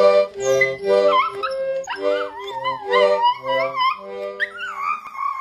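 A small dog howling along to music: the music's steady, repeated notes play for the first four seconds while the dog's wavering howls rise over them, then one long wavering howl holds on near the end.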